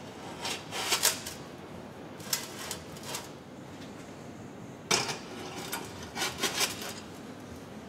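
Metal parts and tools being handled: clinks and scrapes in four short spells, over a faint steady hum.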